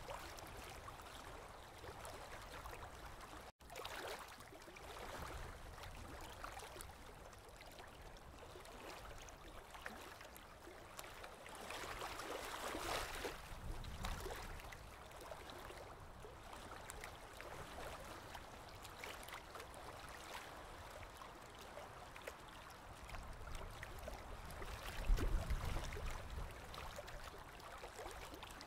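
Aquarium water trickling and gurgling steadily in a goldfish tank. It drops out for a moment about three and a half seconds in, and a low thump comes near the end.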